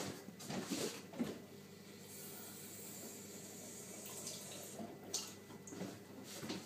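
Kitchen tap running steadily for a few seconds, water filling a pancake-mix shaker bottle, with a few light knocks and clicks around it.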